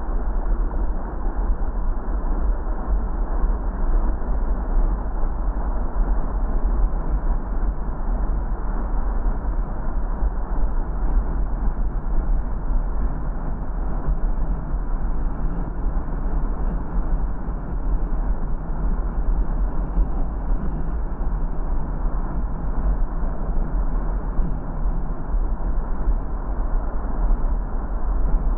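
A car driving: a steady low rumble of engine and road noise that holds even throughout, with no sudden events.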